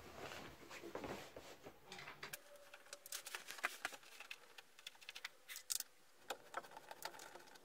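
Scattered light clicks and small taps from a cordless drill-driver being handled, its chuck and front collar turned by hand; the motor does not run.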